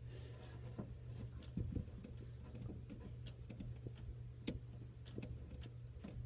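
Light, irregular clicks and taps of a small part being handled: a Wolf downdraft's roller wheel turned over in the hands. A steady low hum runs underneath.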